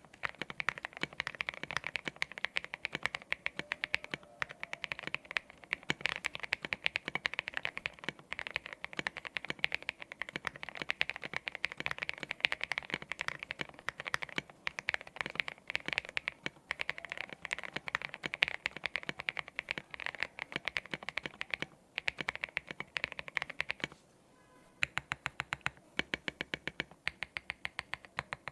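Custom Portico65 mechanical keyboard, with lubed aeboards Raed switches, an aluminium plate and SA-profile keycaps, being typed on in fast continuous runs; the keys have a marbly clack. Typing stops briefly about 24 seconds in, then resumes as slower, evenly spaced keystrokes.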